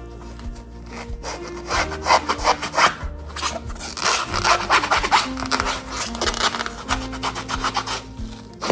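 Rapid back-and-forth scrubbing strokes of a magic eraser rubbed over a trainer's sole, with background music underneath.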